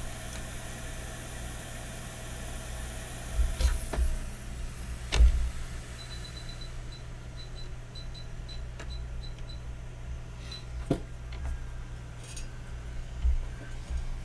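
Hot air rework station blowing at a low airflow setting, a steady hum and faint hiss, while a chip is heated for removal. A few sharp clicks or knocks come through, and about midway a run of short high beeps.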